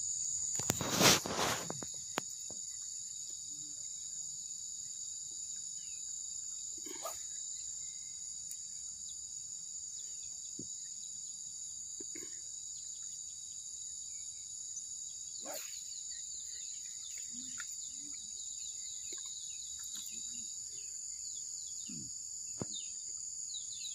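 Steady high-pitched chorus of insects, crickets or cicadas, in wetland vegetation, with a brief loud knock or rustle about a second in.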